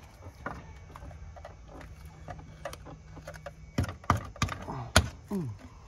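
Light clicks and knocks of a plastic motor-oil jug being handled, then several sharper knocks about four to five seconds in as it is set down on the car.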